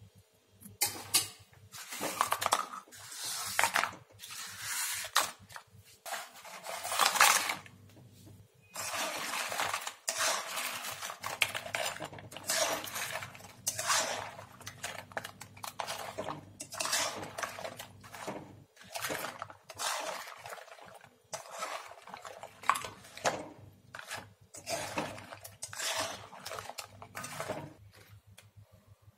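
A flat spatula scraping and clattering against a metal kadai in repeated strokes, roughly one a second, as fried dough hearts are turned in sugar syrup to coat them. The strokes stop near the end.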